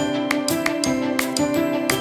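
Instrumental background music: held notes that change step by step over a steady beat.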